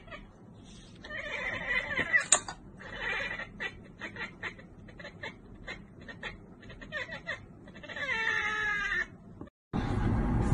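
A tabby cat chattering in several runs of quick, wavering, bleat-like chirps mixed with clicks of its jaw. This is the excited chatter a cat makes at prey it sees but cannot reach. Music comes in near the end.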